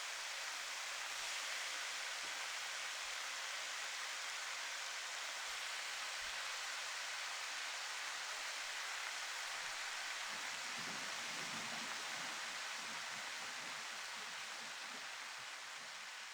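Food sizzling in a hot frying pan: a steady, dense hiss that slowly dies down over the last few seconds.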